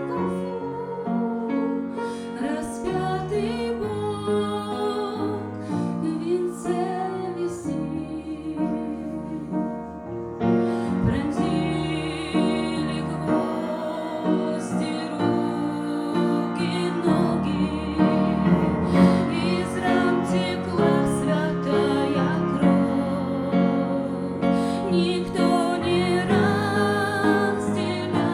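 A woman singing a slow, gentle song with piano accompaniment.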